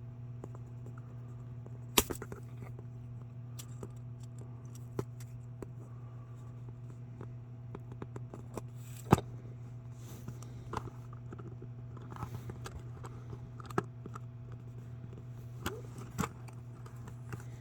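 Scattered small clicks and scrapes of a tool and fingers working at a pin on a scale-model trailer, two sharper clicks standing out about 2 and 9 seconds in, over a steady low hum.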